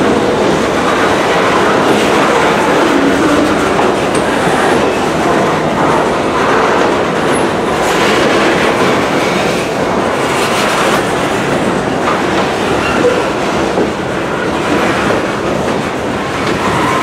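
Freight train of covered hopper cars rolling past close by: a steady, loud rumble and clatter of steel wheels on the rails.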